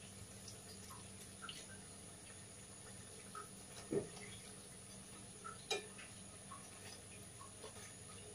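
Faint water drips and small drops falling back into water as soaked, fried urad dal vadas are squeezed out by hand, with two louder wet sounds about four and nearly six seconds in.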